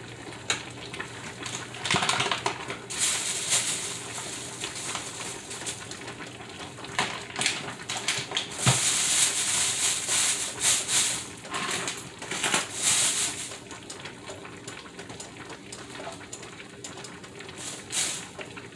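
Plastic bag rustling and crinkling in bursts as it is handled, with a few light clicks and one sharper knock near the middle.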